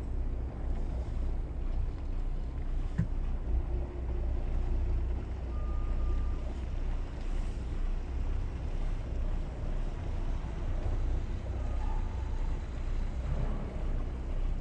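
Twin diesel engines of a Bayliner 4788 motor yacht running at low maneuvering speed, a steady low rumble, with wind on the microphone.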